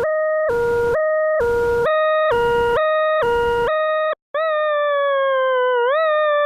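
An electronic siren-like tone alternating between two pitches about twice a second, with bursts of hiss in between. After a brief break it changes to a steady tone that slowly sinks in pitch and swoops back up near the end.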